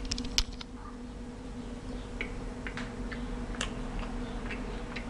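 Chewing close to the microphone: irregular soft crunches and mouth clicks from a firm bar of pressed hemp seed meal and honey, with a sharper click about half a second in.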